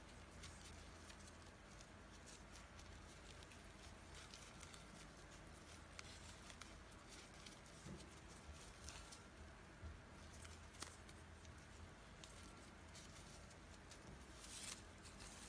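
Faint rustling and small irregular clicks of raffia yarn being pulled and worked with a metal crochet hook, over a low steady hum. The rustle is briefly a little louder near the end.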